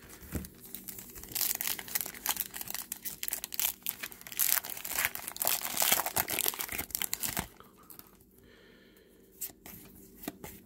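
A foil trading-card pack being crinkled and torn open: a dense run of crackling and tearing from about a second in until about three seconds before the end. After that it goes quieter, apart from a few light clicks as the stack of cards is handled.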